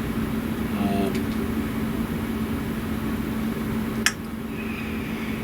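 A steady machine hum, like a fan or air conditioner running, with one sharp click about four seconds in.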